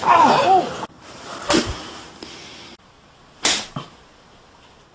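Two sharp blows landing on a person, about two seconds apart, the first with a dull low thud and the second sharper and louder, after a brief voice at the start.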